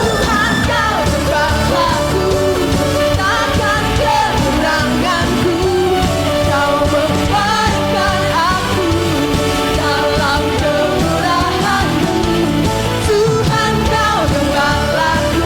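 Church worship band playing a praise song, with voices singing the melody over it.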